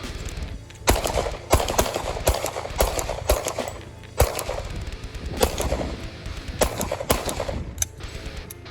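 A string of about nine gunshots fired one after another, roughly half a second to a second apart.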